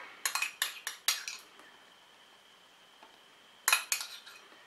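Metal spoon clinking against a small ceramic bowl while sauce is scooped out: a quick run of sharp clinks in the first second or so, then another short cluster near the end.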